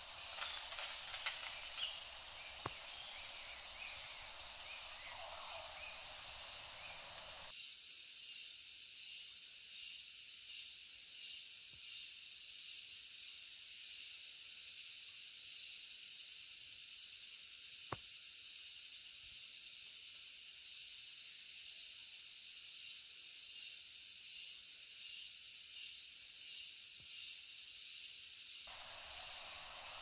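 Shallow rainforest stream running with a steady hiss, with a faint pulsing that comes and goes and a single click about halfway through.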